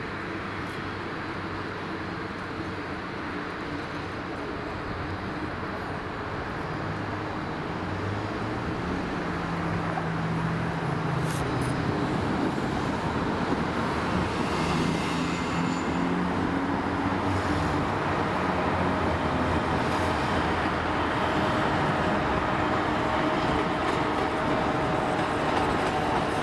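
2TE116K twin-section diesel freight locomotive approaching and passing with its train. Its diesel engines run with a steady low note over the rolling noise of the train, growing louder as it nears.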